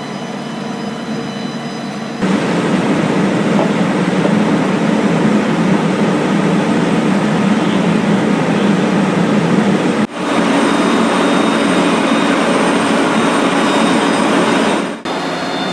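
Steady loud roar, stepping up in level about two seconds in and breaking off abruptly twice where the recording is cut, near ten seconds and near the end.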